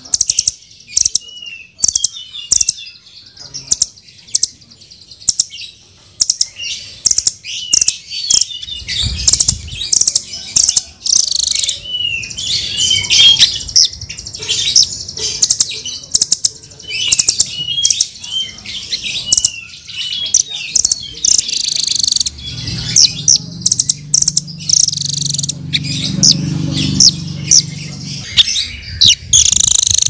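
Blue nuthatch calling: a rapid, continuous series of short, sharp chirps and ticks, with a faint low hum underneath at times.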